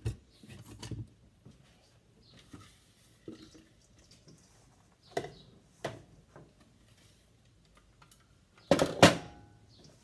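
A plastic spatula scraping and tapping thick bark butter out of a plastic food processor bowl into a stainless steel mixing bowl, in a few scattered knocks. Near the end there is a loud clatter as the plastic processor bowl is set down on the stovetop.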